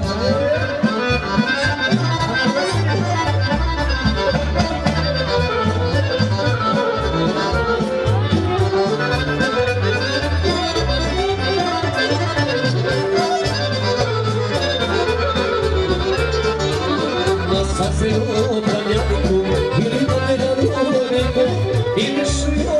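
Accordion playing a tune, with a steady repeating pattern of low bass notes under the melody.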